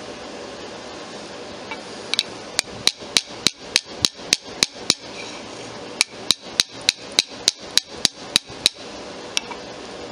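Small watchmaker's hammer peening the end of a brass pin, light sharp metal-on-metal taps. There are two runs of about ten quick strikes each, about three a second, with a one-second pause between them and a single tap near the end.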